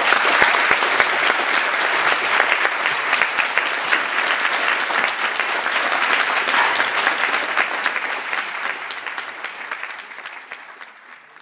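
Large audience applauding, a dense steady clatter of many hands clapping that thins and fades away over the last few seconds.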